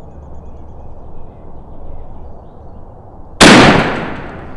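A single shotgun shot about three and a half seconds in, a sudden loud blast whose ring dies away over about a second, fired at a wild turkey gobbler that drops at the shot.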